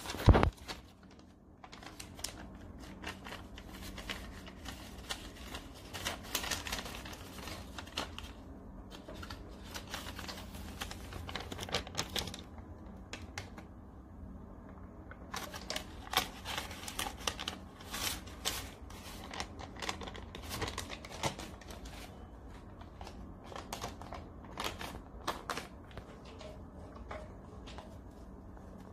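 Round-bottle labelling machine running, with a steady motor hum under irregular clicking and the rustle of label stock feeding.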